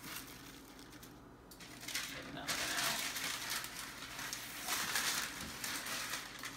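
Thin plastic crinkling and rustling as it is handled, in bouts starting about two seconds in.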